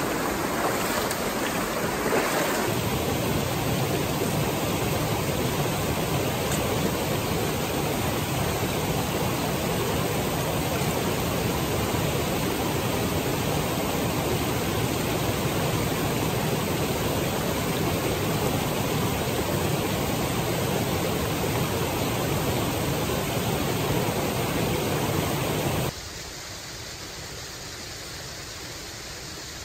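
Small rocky mountain stream rushing over little cascades: a steady hiss of running water. Near the end it drops suddenly to a much quieter steady hiss.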